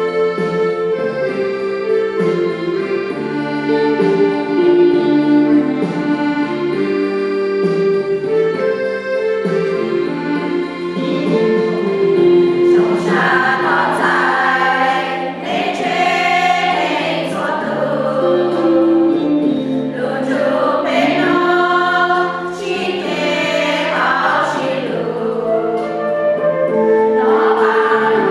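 A hymn: held instrumental chords play alone at first, and a choir or congregation joins in singing about twelve seconds in.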